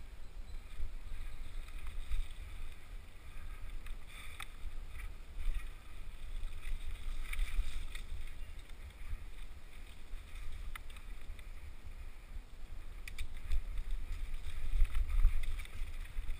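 Wind and riding noise on a helmet-mounted camera during a fast mountain bike descent on a dirt singletrack: a low rumble that swells and falls, with a few sharp clicks and rattles from the bike over bumps.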